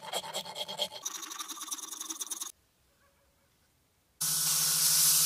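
A file scraping along a wooden handle in rapid strokes, stopping suddenly about two and a half seconds in. After a short near-silent gap, a loud steady hiss with a low hum starts.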